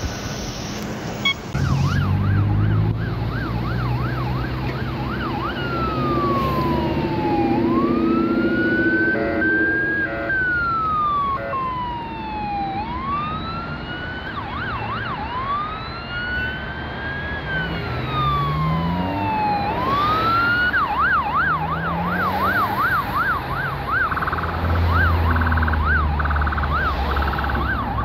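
Electronic siren of a responding emergency vehicle: a fast yelp for a few seconds, then slow wail cycles rising and falling for about fifteen seconds, then back to the fast yelp, changing to a quicker warbling pattern near the end. Vehicle engines rise in pitch under it, and a heavy engine rumble joins near the end.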